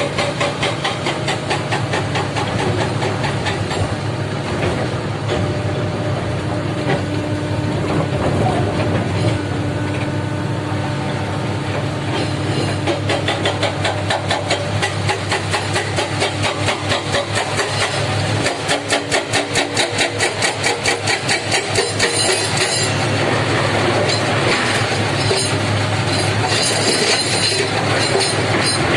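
Heavy diesel engine of a Komatsu PC300 excavator running under load, with a fast, continuous metallic clatter over the engine note and a stretch of rhythmic pulsing about two-thirds of the way in.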